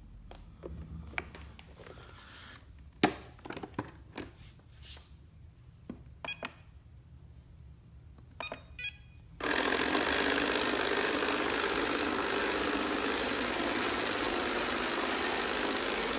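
iLife robot vacuum: a few scattered clicks and knocks, then about nine seconds in a loud, steady, hissing mechanical noise starts abruptly and keeps going. This is the weird, loud noise the owner is reporting to customer service as a fault.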